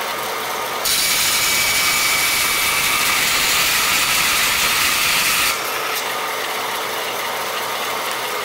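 16-inch vertical bandsaw cutting through thin aluminum angle stock fed apex-up. From about one second in to about five and a half seconds the cut is a louder, even rasp over the running saw; then the saw runs free again. The cut goes through cleanly without grabbing.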